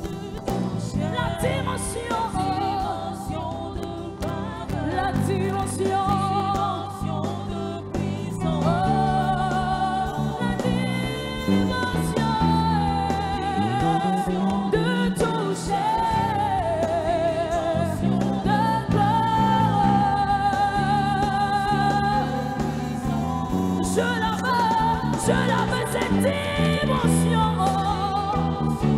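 Live gospel music: a woman lead singer sings long, wavering lines over a choir and a band with a steady bass line, getting a little louder after the first several seconds.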